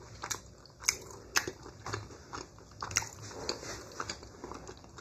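Close-up biting and chewing of a deep-fried egg roll stuffed with fufu, with a few sharp crunches of the crisp wrapper scattered among wet mouth sounds.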